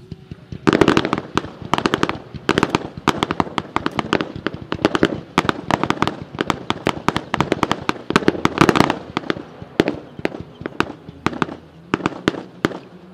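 Fireworks going off in quick succession: a dense run of sharp bangs and crackles, several a second, thinning out in the last few seconds.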